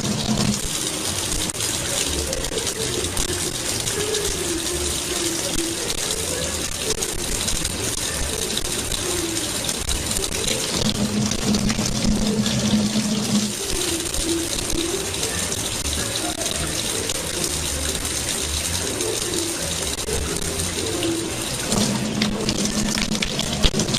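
Water running steadily from a tap, a continuous rushing hiss, with faint wavering tones over it.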